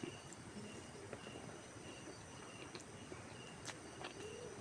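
Faint background ambience with an insect chirping in short, evenly repeated high notes about twice a second, and a few soft clicks.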